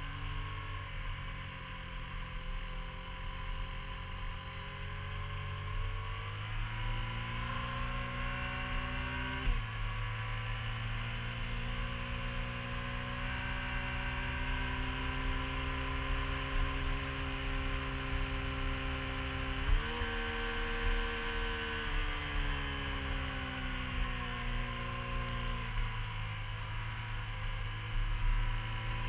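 Motorcycle engine heard from an onboard camera, its pitch rising under acceleration and easing off between bends. There is a sudden drop in pitch about nine and a half seconds in and a sudden jump near twenty seconds, as it changes gear.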